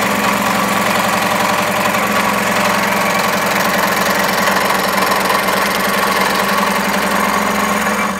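Electric scroll saw running, its reciprocating blade cutting a curved line through a block of pinewood, steady throughout and dropping in level right at the end.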